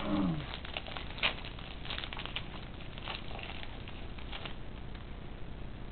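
Foil trading-card pack being torn open and crinkled by hand: a run of quick crackles and rustles that thins out after about four and a half seconds.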